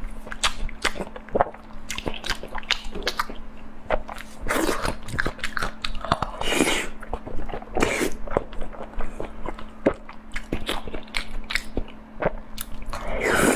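A person eating close to the microphone: chewing with many small, quick wet clicks and smacks, and a few louder, longer mouthfuls around the middle and near the end.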